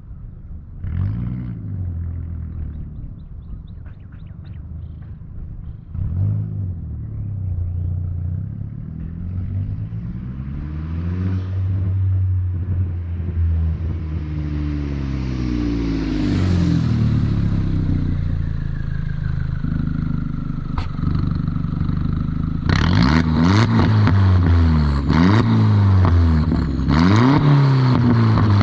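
2003 VW New Beetle 1.8T's turbocharged four-cylinder, with a 3-inch catless downpipe and Cherry Bomb glasspack muffler, revving up and dropping back repeatedly through gear changes. A high turbo whistle rises as it spools, then a falling whistle follows as it winds down. Near the end a loud rushing noise joins the rising and falling engine note.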